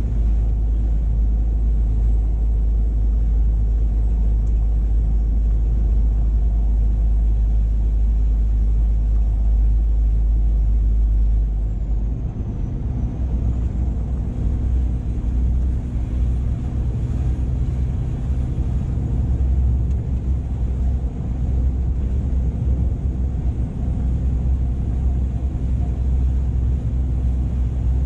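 2007 Scania R480 truck's inline six-cylinder diesel running under way, a steady low rumble with road noise. About twelve seconds in the rumble changes and turns more uneven.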